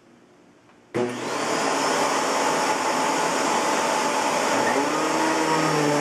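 Kenmore Progressive canister vacuum cleaner with a Panasonic blower motor and a powered nozzle switched on about a second in. It comes up to speed within about a second and then runs steadily and loudly.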